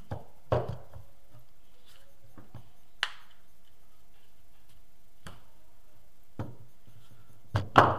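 Scattered knocks and clicks of a metal alternator rotor being handled and set down on a wooden table, a few sharp taps spread through, the loudest two close together near the end.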